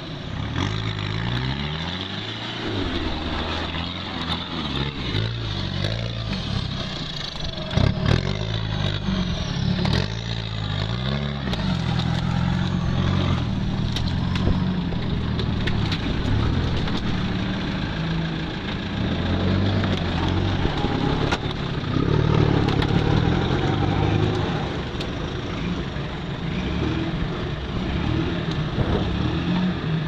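UAZ off-roader's engine revving up and down under load as it drives through creek water and deep mud, with muddy water churning and splashing. Several sharp knocks stand out, the loudest about 8 seconds in.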